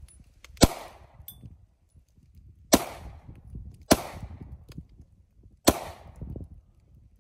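Handgun being fired, four single shots at uneven intervals, each a sharp crack followed by a short echoing tail.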